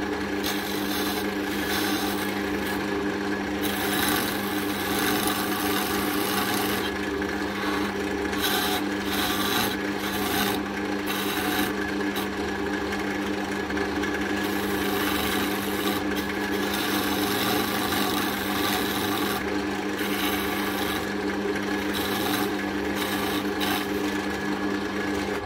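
Wood lathe running with an oak handle blank spinning, a turning tool cutting into it at the headstock end: steady motor hum under a continuous scraping hiss of the cut. The end is being turned down to take a copper ferrule.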